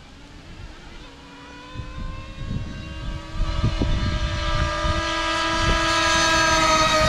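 Traxxas Slayer Pro's two-stroke TRX 3.3 nitro engine running at high revs, starting faint about a second in and growing steadily louder as the truck approaches, its pitch rising slightly.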